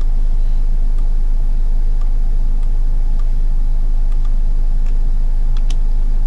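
Steady, loud low electrical hum with a buzz of evenly spaced overtones, unchanging throughout, with a few faint scattered clicks over it.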